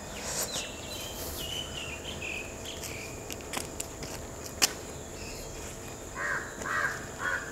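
Outdoor ambience of a steady high insect drone, with a bird's short chirping notes in the first couple of seconds. A crow caws four or five times near the end. A sharp click a little past halfway is the loudest moment.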